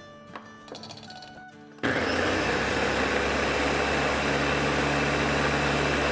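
Electric blender switched on about two seconds in, then running steadily as it blends fresh cilantro with vinegar.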